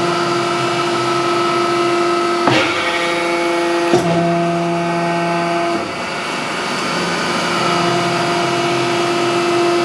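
Hydraulic forging press running under pedal control, its pump unit giving a steady whine. Two sharp metallic clunks come about 2.5 and 4 seconds in as the ram moves. The sound drops back around 6 seconds, then builds again.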